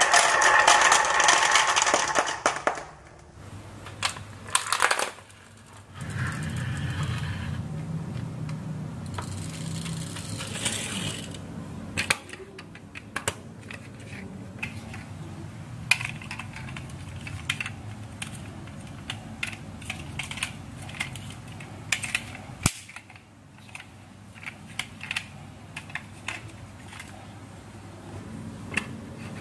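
Glass marbles clattering down a wooden HABA wavy slope and dropping into a toy truck's bed, a loud dense rattle that stops abruptly about three seconds in. After that, quieter rumbling of a toy pickup truck's wheels pushed by hand over a wooden tabletop, with many small clicks and taps.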